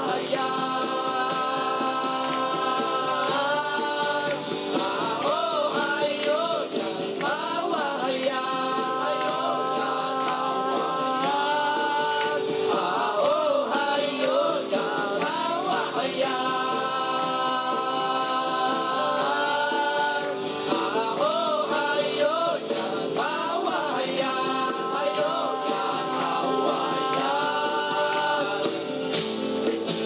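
Two young male voices singing together over a strummed acoustic guitar, live, with long held notes between wavering, bending phrases.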